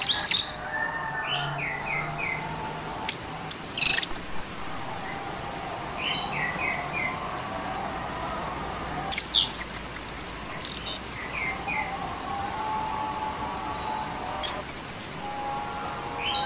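Orange-headed thrush giving harsh, rasping calls in short bouts every few seconds, the longest bout about nine to eleven seconds in, over a faint steady high-pitched background.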